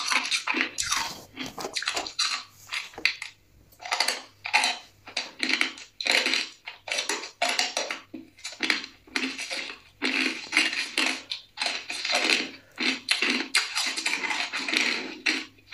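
Shaved ice and freezer frost crunching as it is chewed: a rapid, irregular run of crisp crunches, with a brief lull about three seconds in.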